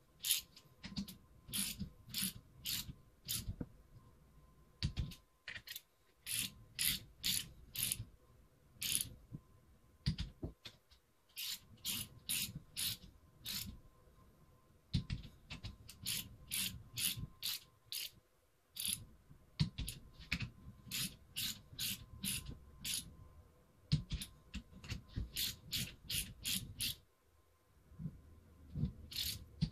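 Socket ratchet wrench clicking in runs of quick strokes, about two to three a second, with short pauses between runs, as it tightens the cylinder head bolts of a Mercury 50 hp inline outboard to 35 inch-pounds on the first pass of the torque sequence.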